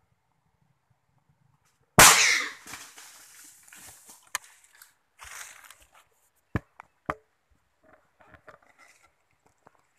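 A single loud rifle shot about two seconds in, fired at a wild boar, followed by rustling and crashing in the undergrowth and two sharp knocks a little later.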